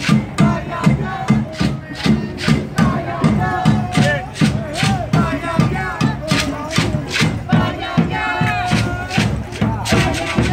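Mardi Gras Indian street music: voices chanting and singing over hand drums and a bass drum beating a steady rhythm. The drumming quickens near the end.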